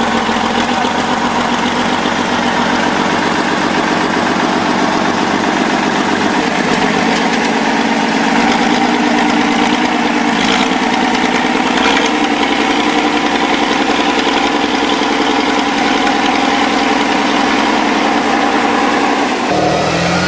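Engines of off-road trial vehicles running steadily, the pitch shifting a little now and then. The sound changes abruptly near the end.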